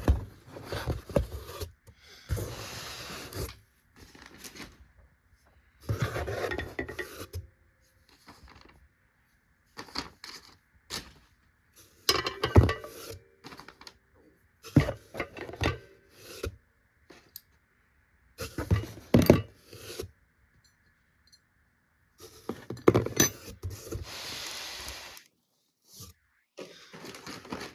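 Steel hand tools being handled: metal clinks and sharp clicks as pliers are picked up and set down, with rustling of packaging in between, in irregular bursts.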